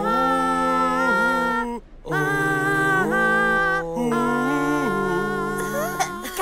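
Several cartoon voices singing long held notes in harmony without instruments, in sustained chords that break off briefly twice.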